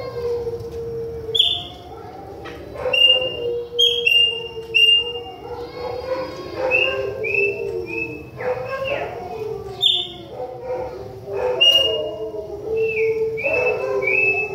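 Chopi blackbird (pássaro-preto) singing: about a dozen loud, short whistled notes, each sliding down in pitch. Beneath them runs a lower wavering tone.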